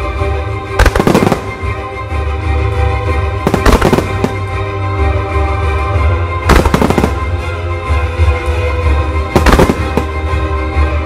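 Aerial firework shells bursting over music in a music starmine: four big bursts come about three seconds apart, with a steady, heavy bass in the music between them.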